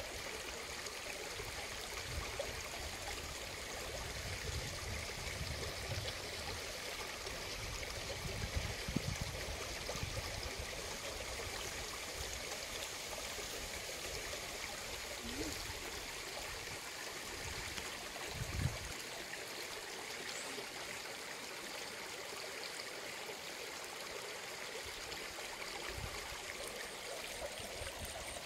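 Small stream running steadily, with a couple of brief low thumps partway through.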